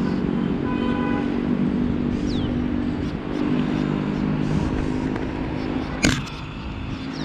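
A motor vehicle engine runs with a steady drone. A sharp knock comes about six seconds in.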